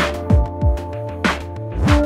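Electronic background music with a beat: deep kick drums that drop in pitch, sharp snare-like hits and held synth notes.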